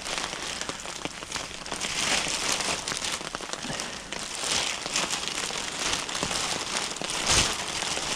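Rustling and crinkling of a thin plastic bag being handled, with many small irregular crackles.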